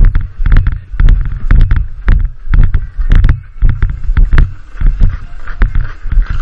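Footsteps of ice skates on rubber matting, heard through a helmet-mounted camera: rhythmic thuds and sharp clicks about twice a second, with a hiss of breath or air across the microphone behind them.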